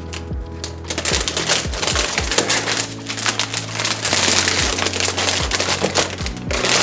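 Packaging rustling and crinkling in irregular bursts as the outfit's parts are handled, over background music with steady bass notes.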